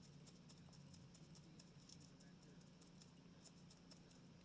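Near silence: room tone with a faint steady low hum and scattered faint ticks.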